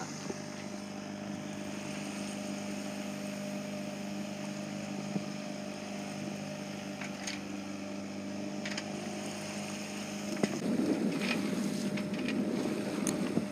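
A sailboat's auxiliary engine running at a steady drone while motoring, with water and wind noise around it, growing louder and rougher about ten seconds in.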